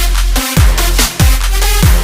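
Electronic dance music with a heavy, steady bass and a deep kick drum whose pitch drops sharply on each hit, landing roughly every half second to two-thirds of a second.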